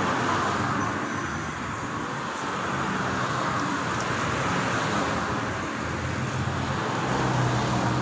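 Steady road traffic noise, with a car's engine growing louder near the end as it approaches.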